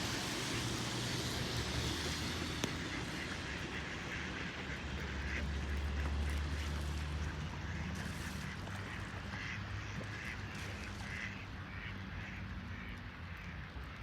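Ducks quacking, with a run of repeated quacks at about two a second through the second half, over a steady background hiss and a low rumble.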